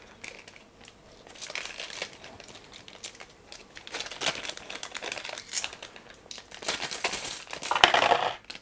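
Metal board-game coins clinking against each other as they are handled and gathered in the hands. Scattered single clicks give way to a denser jingling clatter about two-thirds of the way through.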